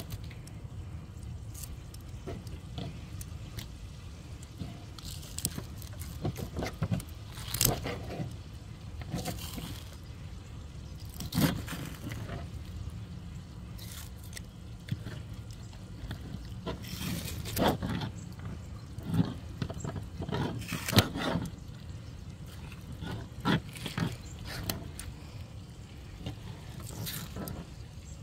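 Catfish being skinned with pliers: irregular short tearing and scraping sounds as the skin is pulled from the flesh, with small knocks of the fish and pliers against a plastic board, over a steady low rumble.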